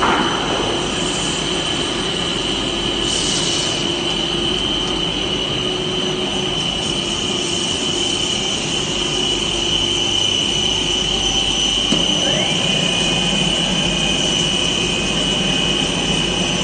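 HDPE corrugated pipe extrusion line machinery running: a steady mechanical drone with a high steady whine over it. About twelve seconds in, a second whine rises in pitch and then holds.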